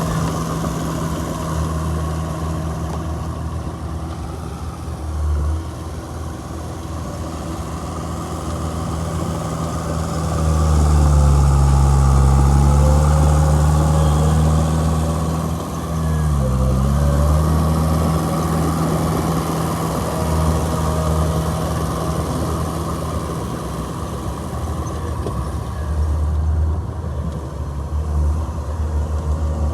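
Heavy diesel engine of earthmoving machinery running at work, its pitch sagging and its sound getting louder under load about ten seconds in. The pitch dips sharply once more around sixteen seconds and then recovers.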